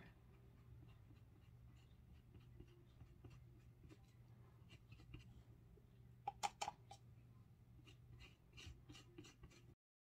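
Faint scratching and light taps of a small paintbrush dabbing mica paint into a silicone mold and against a cut-off plastic cup, over a low steady hum. A few sharper taps come about two-thirds in and again near the end, and the sound cuts off suddenly just before the end.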